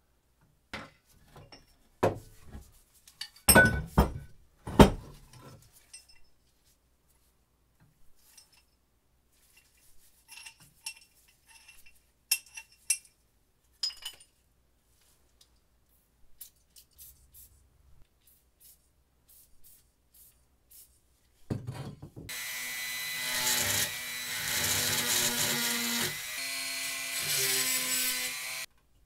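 Metal vise parts clinking and knocking as a rusty cast-iron bench vise is taken apart by hand, with a few sharp knocks a few seconds in. Near the end a handheld rotary tool runs for about six seconds against the vise's serrated jaw.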